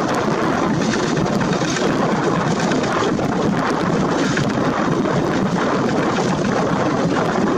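Many walking-tractor diesel engines running together, a loud, steady, dense clatter and rumble with no single engine standing out.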